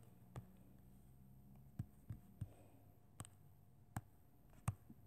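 Light, sharp taps on a tablet touchscreen while drawing, about seven at uneven intervals, over a faint low hum that stops about halfway through.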